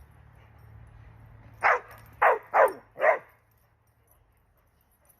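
Bulldog barking four times in quick succession, starting a little under two seconds in, each bark short and dropping in pitch.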